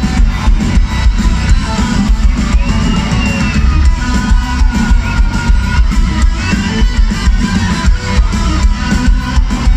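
Rock band playing live: guitars and drum kit over heavy bass, with a high lead line bending in pitch.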